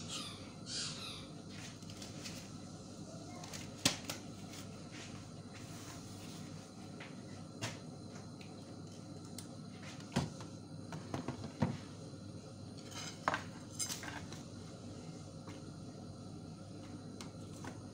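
Scattered clinks and knocks of metal kitchenware (spoons, a mesh tea strainer, a plate) being handled on a counter, most of them bunched together in the middle, over a steady low hum.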